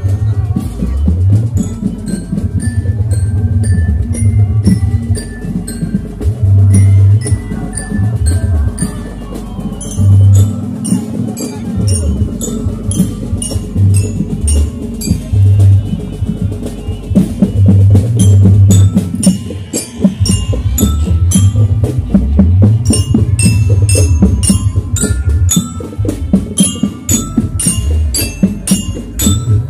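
Loud percussion-led music played for a barongan troupe, with heavy low drum beats and a rapid run of bright metallic pitched strikes over them.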